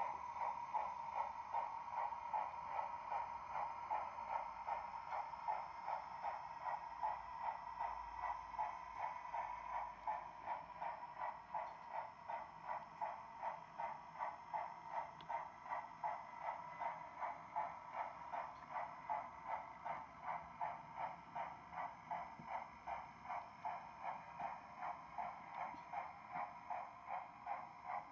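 On3-scale model of Rio Grande C-19 2-8-0 #340 running, its onboard sound system playing a steady steam-exhaust chuff at about two to three beats a second.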